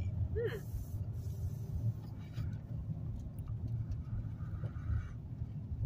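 A draw on an Orion Bar 7500 disposable vape at the start, then a breathy exhale of vapour about four seconds in that lasts a little over a second, over the steady low rumble of a car cabin.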